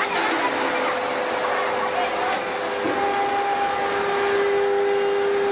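Forging press machinery running steadily: an even rushing noise with steady humming tones, and a higher whine that joins about three seconds in.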